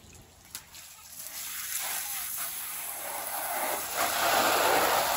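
Garden hose spraying water into an empty inflatable paddling pool: a hiss of spray that builds and becomes much louder about four seconds in. A short click sounds about half a second in.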